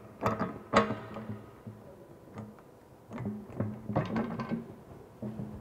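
Irregular metallic clicks and knocks as a threaded pipe union is worked onto a metal water pipe by hand, over a low hum that comes and goes.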